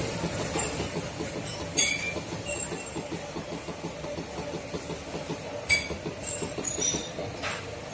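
Electric hydraulic power pack running: the motor and pump give a steady hum with a fast, even pulsing. Several sharp metallic clicks and clinks come through, the loudest about 2 seconds in and about 6 seconds in.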